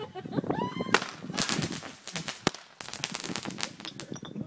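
Firecrackers going off in an irregular string of sharp cracks and pops, with a short rising whistle about half a second in.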